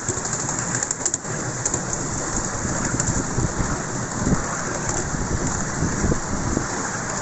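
Miniature railway carriage running along the track: a steady clattering noise of wheels on rails, with a few small knocks.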